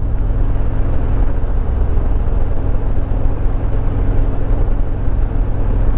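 2022 Harley-Davidson Road Glide Limited's Milwaukee-Eight 114 V-twin running steadily at cruising speed, with constant wind and road noise.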